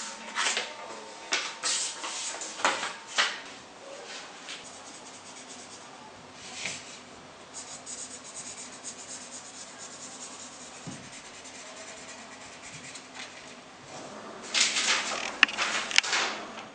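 Felt-tip markers scratching across paper in short strokes, then a louder rustling of the paper sheet being handled and lifted near the end.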